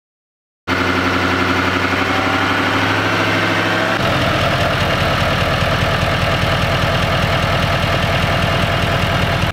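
Chevrolet Silverado's Duramax turbo-diesel V8 idling steadily with the hood open, running on freshly changed oil. The sound starts abruptly about a second in, and a few seconds later it turns into an even, rapid low pulse.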